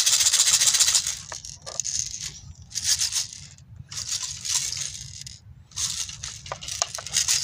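Steel BBs rattling as they are poured into the BB reservoir of a Crosman M4-177 air rifle. There is a long run of rattling in the first second, then several shorter bursts.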